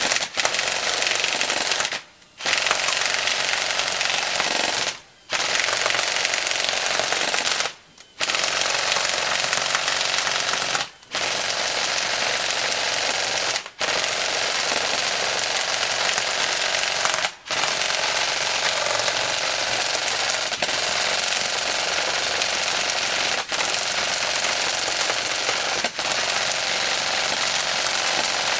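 Echo1 Stag Arms full-metal M4 airsoft electric gun (AEG) firing on full auto, its gearbox cycling in a fast, steady rattle. It fires long bursts of two to four seconds with brief pauses between them, and the pauses grow shorter in the second half.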